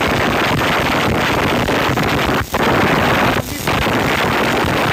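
Electric arc welding in progress: the welding arc runs with a loud, steady hiss and briefly drops out twice, about two and a half and three and a half seconds in.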